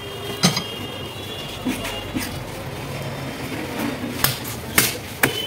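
Heavy knife chopping through a pangas fish on a wooden block: a sharp knock about half a second in, then three more in quick succession near the end, over a steady background noise.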